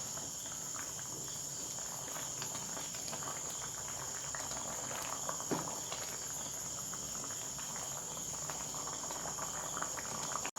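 Tamarind-and-jaggery pickle gravy boiling in a pan, a soft even bubbling with scattered faint pops, under a steady high-pitched whine.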